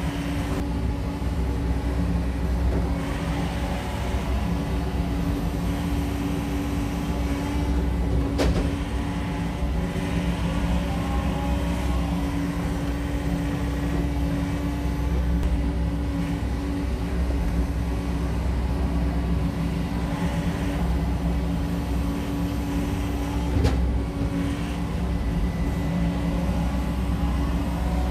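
SANY SY80U mini excavator's diesel engine running steadily under working load, with two sharp knocks, about eight seconds in and again some fifteen seconds later, as maple rounds are dropped into the steel dump trailer.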